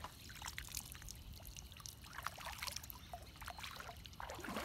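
Faint scattered rustles and light clicks with a faint trickle of water, a little louder near the end.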